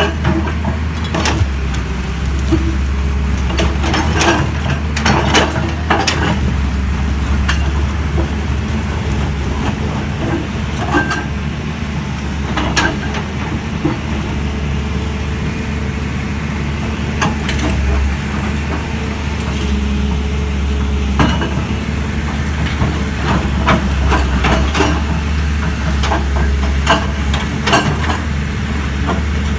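Heavy machinery at a construction site: a large engine runs steadily, with irregular knocks and clanks throughout and a faint wavering high whine.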